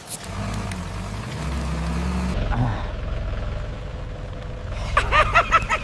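Tractor engine running steadily at a low pitch, with an abrupt change in the sound about two seconds in. Near the end, several short high-pitched calls rise and fall over it.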